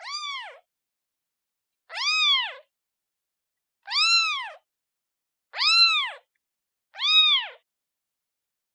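Kitten meowing, calling for its mother: five high-pitched meows about every one and a half to two seconds, each rising and then falling in pitch, with silence between them.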